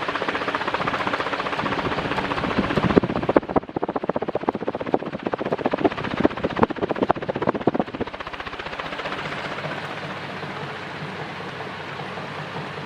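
CMC 48-inch industrial ceiling fan running, its air rushing steadily. About three seconds in the rush drops away and a few seconds of irregular clicks and knocks follow. It then settles to a quieter, steady hum.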